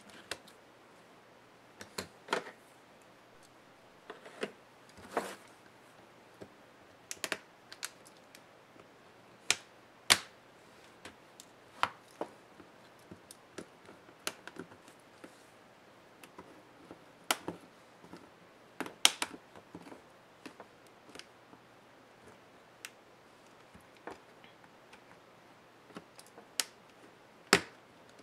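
Scattered sharp clicks and taps of plastic, glass and metal at uneven intervals, a few much louder than the rest, as a laptop display assembly is pried at with a small knife and pressed apart by hand.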